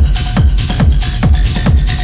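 Techno music from a DJ mix: a steady four-on-the-floor kick drum, about two and a half beats a second, with hi-hats and short synth blips between the kicks.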